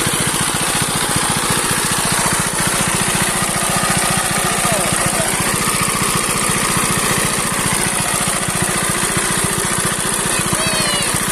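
Single-cylinder diesel engine of a shallow-machine irrigation pump running steadily, with an even, rapid firing beat.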